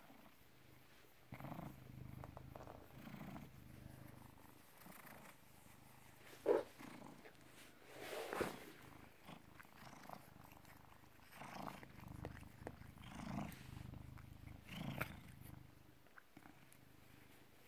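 British Shorthair cat purring close to the microphone, the low rumble swelling and fading with its breaths. Short rustling sounds come over it, and one brief, sharper sound about six and a half seconds in is the loudest moment.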